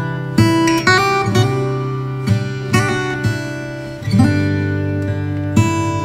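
Acoustic guitar music: plucked notes and strummed chords ringing on, a new chord coming in about four seconds in.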